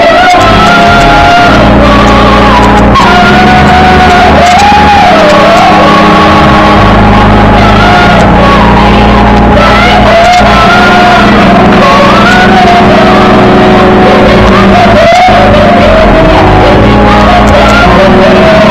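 A woman singing a gospel song loudly with sliding, drawn-out notes, amplified through a handheld microphone, over low instrumental accompaniment.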